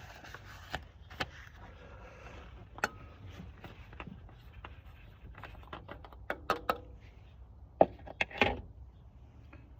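Scattered light clicks and knocks of objects being handled, with a small cluster of sharper knocks about six and a half seconds in and again about eight seconds in, over a faint low hum.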